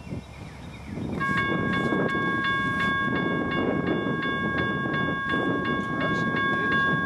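Railroad grade-crossing signal bell starts ringing about a second in, a rapid clanging of about three strikes a second. Beneath it is the low rumble of an approaching CSX freight train led by a GE ES44DC locomotive.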